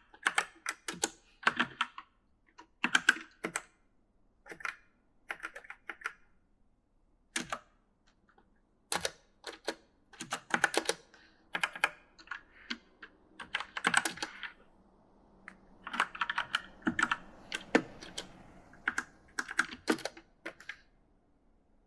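E-Element mechanical gaming keyboard being typed on, keystrokes clattering in uneven bursts with short pauses between them.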